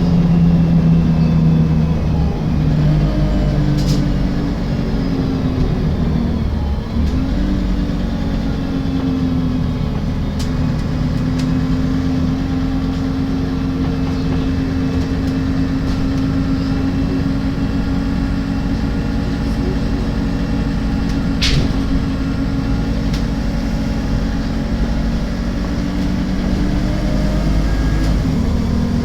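Alexander Dennis Enviro 300 bus on a MAN chassis with its engine running, the engine note stepping in pitch twice in the first seven seconds. A few sharp clicks come over it, the loudest about three-quarters of the way through: the clicking noise the bus makes.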